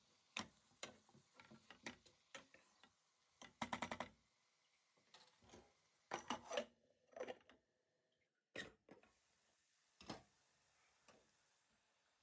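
Kitchen utensils and cookware clicking and knocking at irregular intervals, with a quick run of taps about three and a half seconds in.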